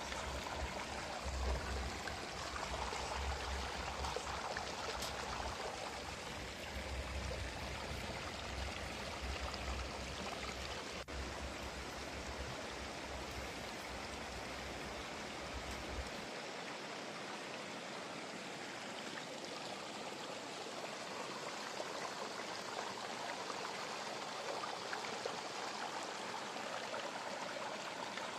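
Steady background hiss with no distinct events. A low hum underneath cuts off about sixteen seconds in.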